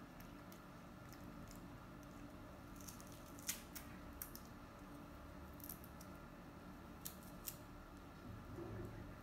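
Baby monkey eating fresh lotus seeds from the pod: a few faint, sharp crunches and clicks as it bites seeds and picks at the pod, over a steady low hum.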